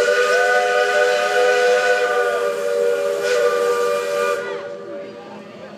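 Steam locomotive's whistle blown in one long blast, several notes sounding together, with a higher note joining for the first two seconds or so. It cuts off about four and a half seconds in.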